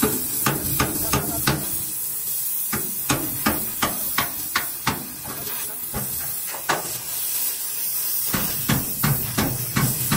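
A hammer striking repeatedly in uneven runs of blows, about twenty in all, over a steady hiss.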